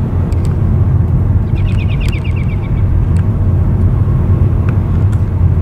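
Car driving along: a steady low rumble of road and engine noise. About one and a half seconds in comes a brief run of quick high chirps.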